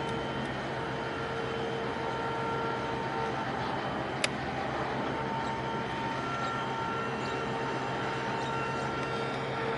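Steady mechanical drone of a 2,300 TEU container ship's engine and machinery passing close by, with a few held tones that come and go. A single sharp click about four seconds in.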